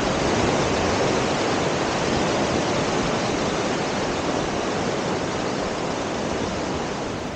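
Waterfall rushing: a steady, dense hiss of falling water that eases slightly near the end.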